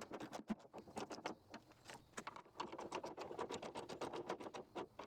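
Faint, rapid, uneven clicking of a 13 mm ratcheting wrench as the cylinder's bolts and lock nut are tightened.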